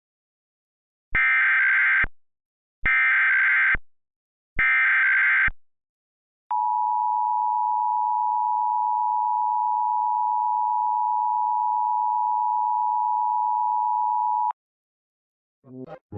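Emergency Alert System tones: three short bursts of SAME digital header data, then about eight seconds of the steady two-tone attention signal, which cuts off suddenly. The sequence opens a Required Monthly Test alert.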